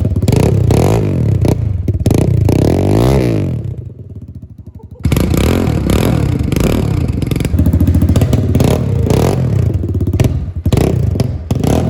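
Small single-cylinder dirt bike engine running and being revved repeatedly, its pitch rising and falling with each blip of the throttle. It drops away about four seconds in, then comes back loud about a second later and keeps revving.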